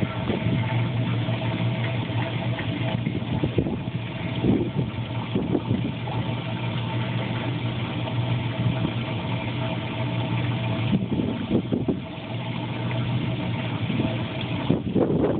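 Marina trash skimmer running: a steady pump hum under the rushing and splashing of water pouring over the skimmer's intake.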